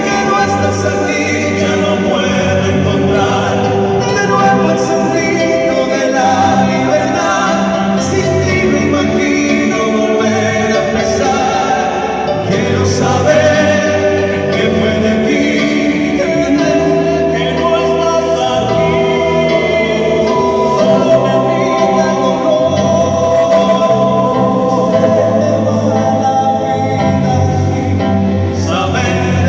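Live band music with several voices singing together over a steady accompaniment.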